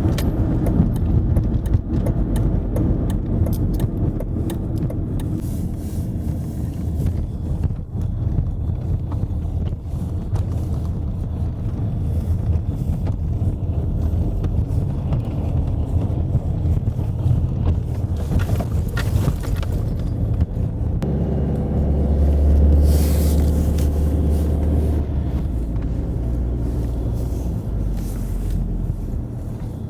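Car driving, a steady low engine and road rumble heard from inside; the engine note swells for a few seconds past the twenty-second mark, then settles.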